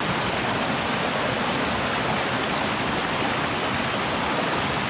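Fast-flowing shallow creek rushing steadily over rocks, with a thin spout of water splashing down from the bank into it.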